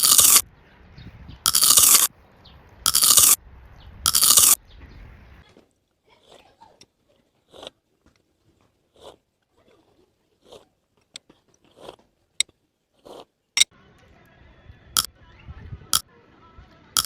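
Close-miked eating of sweets: four loud crunching bites, about a second apart, then quieter chewing with scattered small mouth clicks and snaps.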